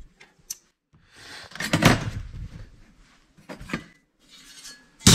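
Metal parts of a Toyota car stereo being handled and pulled apart by hand: scraping and rustling with a few light clicks, and a sharp clack near the end.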